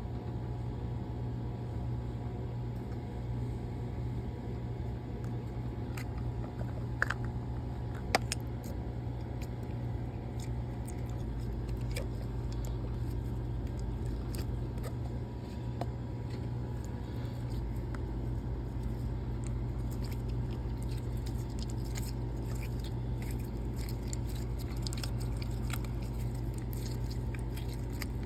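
Small clicks, crackles and squishy handling noises from a dinosaur slime toy and its packaging being opened and played with by hand, with two sharper clicks about 7 and 8 seconds in, over a steady low background hum.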